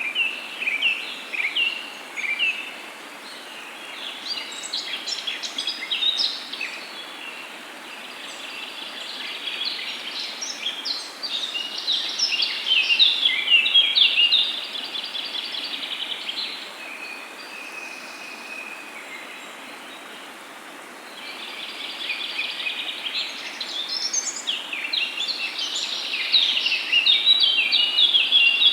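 Several songbirds chirping and trilling together over a steady hiss of background noise. The song is busiest about ten to fifteen seconds in, thins out for a few seconds, then builds again toward the end.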